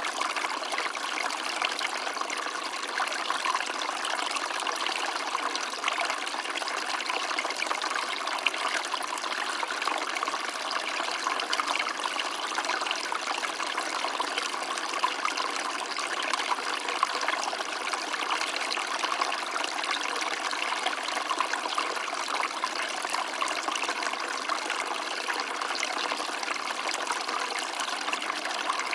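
Water of a small stream running and trickling steadily, a continuous bubbling splash with no pauses.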